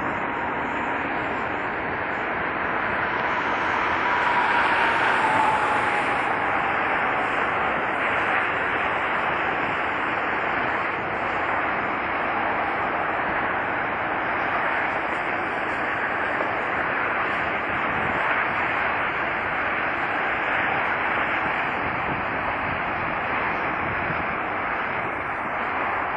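McDonnell Douglas MD-11 freighter's three turbofan engines at takeoff power as it climbs away: a steady jet roar with a whine that falls in pitch over the first several seconds.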